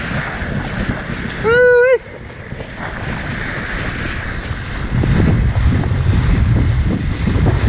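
Wind buffeting the microphone over water rushing under a kiteboard, with a short, loud pitched note about one and a half seconds in. The wind and water noise grow louder about five seconds in.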